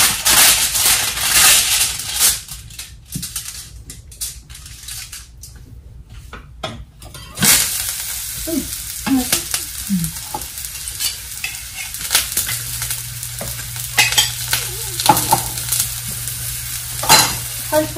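Avocado talipatti flatbread dough sizzling on a hot flat griddle pan. The sizzle starts suddenly about seven and a half seconds in, when the dough goes onto the pan, and keeps going steadily. Near the end come a few sharp clicks of a steel spoon against the pan as oil is spooned over it.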